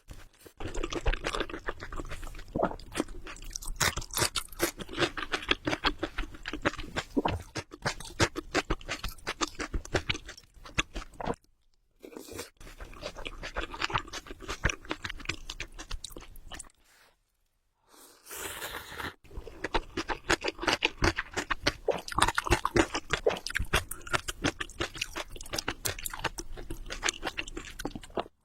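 Close-miked chewing of spicy ramen noodles: a dense run of many small mouth clicks, with short pauses about 12 and 17 seconds in.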